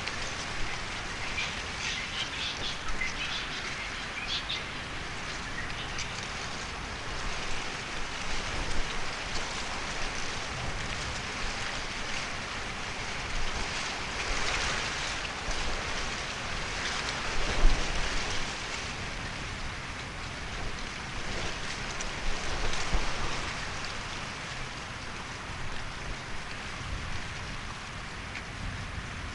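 Steady rain-like pattering hiss, with a few short high chirps in the first several seconds and a low thump a little past halfway.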